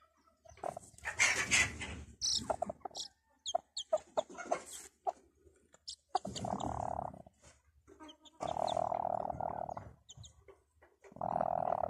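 Chick peeping in short, high cheeps, calling its mother, and the broody hen answering with three long, low, drawn-out calls of about a second each. A loud rough noise comes about a second in.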